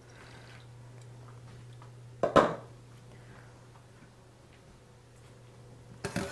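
A pot lid set down on the countertop with a sharp clatter about two seconds in, then a metal colander knocking into a stainless-steel sink near the end.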